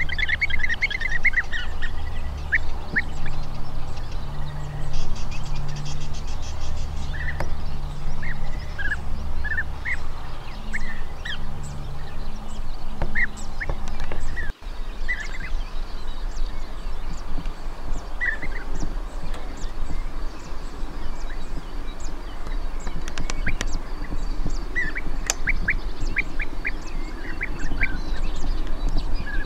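European bee-eaters calling with short, liquid, rolling 'prruip' notes in scattered bursts, several in quick succession near the start and again in the last few seconds. A low rumble lies underneath through roughly the first half.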